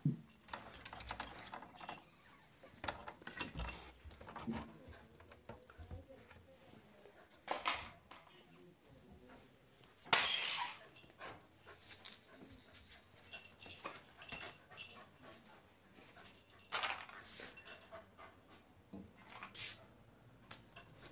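Labrador puppy sniffing hard at the crack of a closed wooden door, in short irregular bursts of snuffling mixed with scratching at the door, with a louder bump about ten seconds in.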